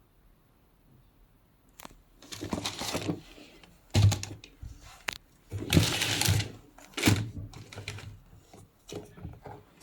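Cardboard sneaker box and its packaging being handled: scattered clicks and knocks, a thump about four seconds in, and two stretches of rustling paper or cardboard.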